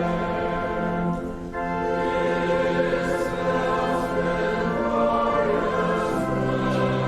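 Choral singing with instrumental accompaniment in long held chords that change every second or two.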